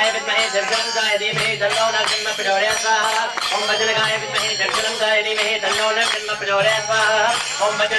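A group of voices singing a devotional chant, with small hand cymbals (karatalas) ringing in a steady rhythm.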